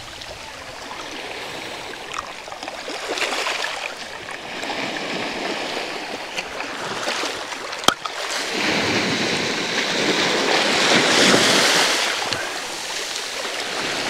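Small sea waves washing in over a pebble beach, swelling louder in the second half and ebbing again near the end. A single sharp click a little past halfway.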